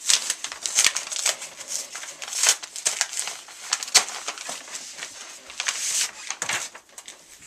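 A 'Do Not Bend' mailer being torn open: a fast, irregular run of ripping, crinkling and rustling with sharp clicks and snaps.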